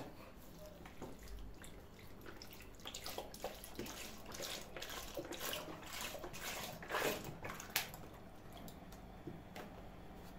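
Milk being poured into the cream ingredients. It splashes and trickles in irregular spurts that are densest in the middle and thin out near the end.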